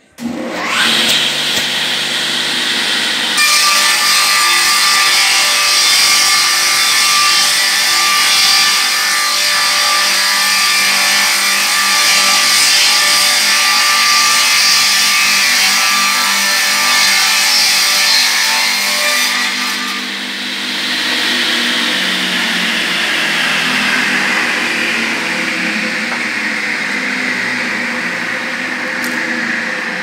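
Multi-rip circular saw edging machine starting up with a quickly rising whine, then ripping a wooden slab into boards from about three seconds in to about nineteen seconds. Afterwards the saw runs on without load, its whine slowly falling in pitch.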